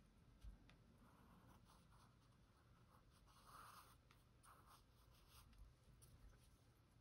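Faint scratching of a pencil drawing short, irregular strokes on sketchbook paper.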